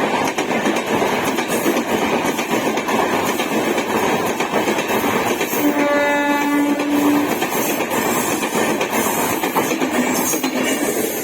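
A train running past with a steady rolling noise of wheels on rails; about halfway through a train horn sounds once for about a second and a half.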